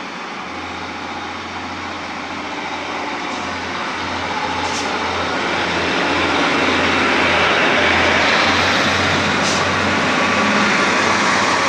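Northern Class 156 Super Sprinter diesel multiple unit pulling out and passing close by: its underfloor Cummins diesel engines working under power with a steady low drone and rumble. The sound grows louder as the cars pass, peaking about two-thirds of the way through.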